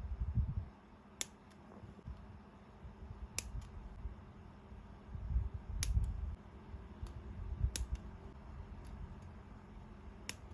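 Close-up crafting handling sounds: five sharp clicks about every two seconds, each with a fainter click just after, over dull low bumps of things being handled on a desk.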